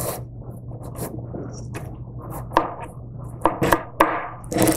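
Kitchen knife cutting through the top of a raw pie pumpkin: crisp crackles and creaks as the blade works down through the hard rind and flesh, getting louder in the last second or so.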